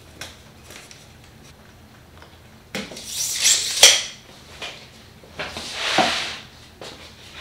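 A few faint ticks, then a short metallic rattle ending in a sharp click about four seconds in, the loudest sound. After that a plywood panel slides across the perforated top of a Festool MFT worktable, a drawn-out scrape with a knock in the middle.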